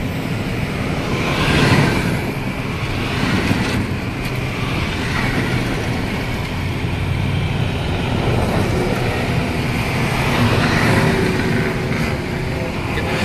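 Cars driving over a sandy dirt track, with steady engine and tyre noise.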